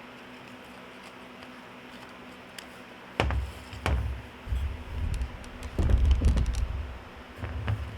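Ratchet strap buckle being handled: sharp clicks and low thumps starting about three seconds in, over a faint steady hum.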